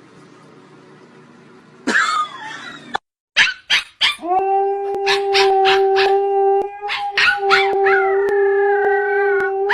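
A dog howling and yipping. A short wavering cry comes about two seconds in, then after a brief break a long steady held tone runs on under many short yips and a higher gliding howl.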